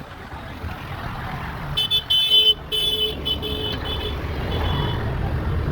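Road traffic rumbling, with a vehicle horn honked about five times in a row, the first honk the longest and loudest.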